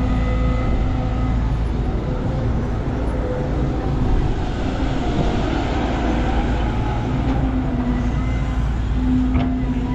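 Heavy diesel engine running steadily at a constant pitch, with a short click near the end.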